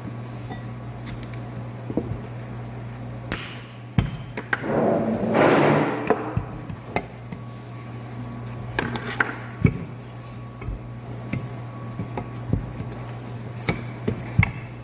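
Wooden rolling pin rolling dough out on a board for sambusa wrappers, with scattered sharp knocks as the pin and dough are handled, and a louder rustling swish about five seconds in. A steady low hum runs underneath.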